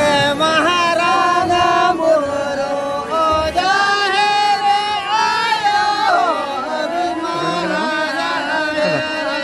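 Men singing a Santali Dong folk song in full voice, with a harmonium holding steady chords under the voices.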